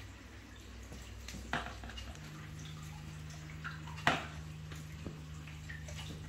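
Reef aquarium water circulation: a steady low pump hum and moving water, with a second steady hum starting about two seconds in and a few sharp drip-like clicks, the loudest about four seconds in.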